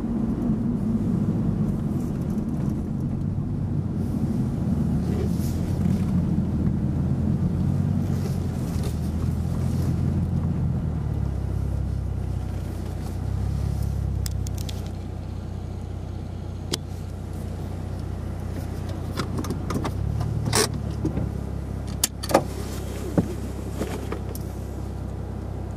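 Car heard from inside the cabin: engine and road noise while driving, dropping about halfway through to a lower steady idle as the car stops. A few sharp clicks near the end.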